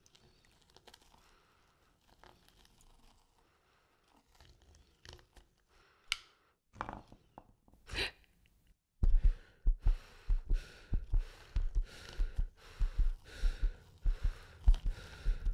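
Sound-designed snail foley: faint small crunching and crackling as a snail crawls over sand and shells, with a few louder wet bursts midway. From about nine seconds in, a loud rhythmic pulsing of deep thuds sets in, about two to three a second.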